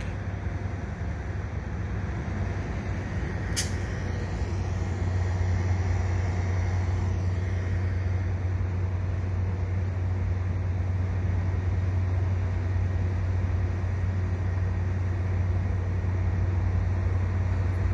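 Diesel locomotive rumble from a train at the station: a steady low drone that grows slowly louder as a freight train approaches. One sharp click sounds about three and a half seconds in.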